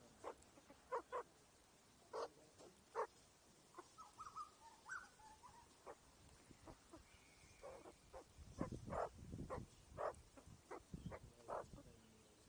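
Australian magpies feeding close to the microphone: a scatter of short, soft pecks and clucks. A brief faint warbling sound comes about four seconds in, and a run of deeper thuds comes past the middle as a bird moves right beside the microphone.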